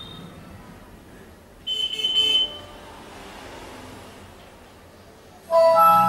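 PC speaker box playing audio from a Gigabyte H61M-S1 motherboard's onboard sound: a short, bright electronic tone about two seconds in, then a chime of several layered notes starting near the end. The sound shows the onboard audio working again after a burnt resistor in its circuit was replaced.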